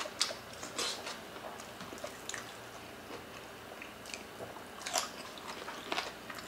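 Close-miked mouth sounds of two people eating oxtail kare-kare with rice by hand: chewing and biting, with scattered short smacking clicks, the sharpest about five and six seconds in.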